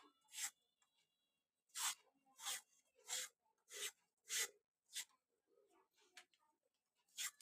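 Hand peeler scraping the skin off a bottle gourd, one quick stroke about every two-thirds of a second, with a pause of about two seconds near the end before another stroke.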